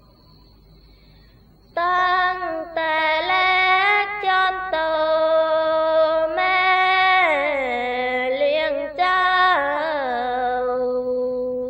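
A solo woman's voice singing sorapanya, Isan-style chanted Buddhist verse, in long drawn-out held notes that slide down in pitch, without accompaniment. It begins nearly two seconds in.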